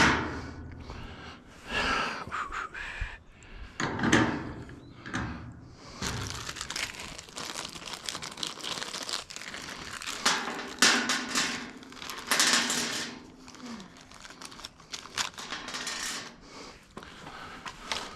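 Irregular rustling, crinkling and knocks of parts and tools being handled during hand assembly, loudest in a few bursts near the middle.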